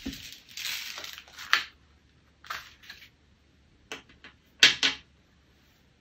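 Pen scratching over paper and sheets of paper being handled on a tabletop, followed by a few short sharp clicks and taps. The loudest is a quick pair near the end.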